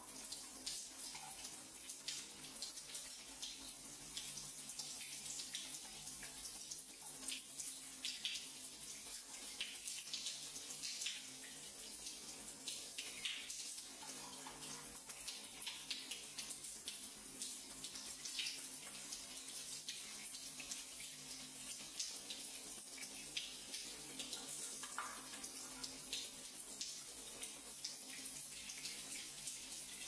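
Water from a waterfall shower head spraying steadily and splashing over hands held in the stream and cupped to catch it.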